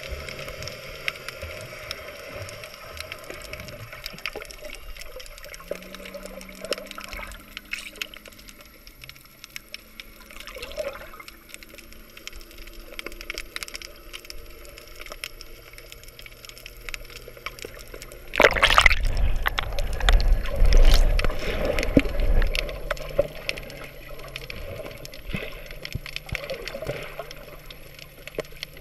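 Water and bubbles moving around an underwater camera as the swimmer moves, heard muffled through the camera housing. About two-thirds of the way through, a loud rush of splashing and bubbles lasts a few seconds, then fades back to the quieter water noise.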